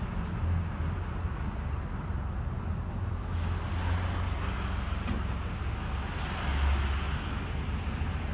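Ataman city bus running, its engine rumbling low under steady road and cabin noise, heard from inside. The hum swells briefly about two thirds of the way in.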